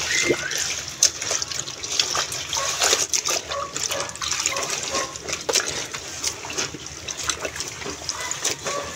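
Clothes being hand-washed in a plastic basin of soapy water: hands rubbing and squeezing the wet fabric, with irregular sloshing and splashing.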